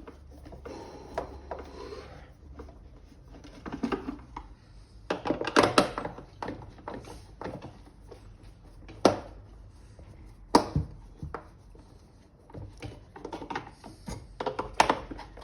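Plastic housing parts of a Siemens vacuum cleaner being handled and pressed together by hand: scattered clicks, rattles and knocks, with two sharp knocks about a second and a half apart past the middle.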